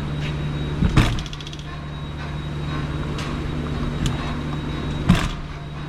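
Peterbilt 359 cab door being swung shut: two hard slams, one about a second in and one near the end, with lighter knocks between. The door won't close properly because of an old, worn piano hinge, which the owner suspects is sprung or twisted. A steady low hum runs underneath.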